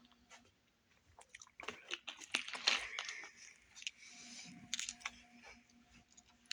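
A person biting into and chewing a Subway sandwich close to the microphone, with moist crunching and mouth clicks, loudest about two to three seconds in and softer after.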